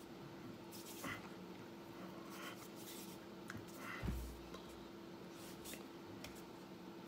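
Faint rustles and soft taps of hands and sleeves moving while signing, with a low thump about four seconds in, over a steady low hum.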